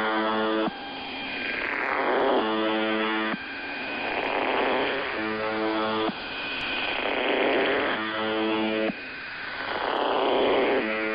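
UVB-76 'The Buzzer' shortwave time-signal-style marker received over the radio: a harsh buzz tone about a second long, repeating roughly every three seconds. Between buzzes, hissing shortwave static swells and fades.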